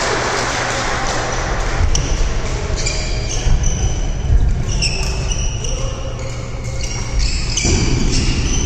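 Badminton doubles rally: a sharp racket hit on the shuttlecock about two seconds in, then many short, high sneaker squeaks on the wooden court floor over the thud of footfalls.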